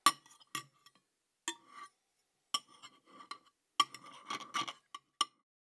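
Spoon clinking against a bowl: about eight sharp clinks at uneven intervals, each with a brief ring.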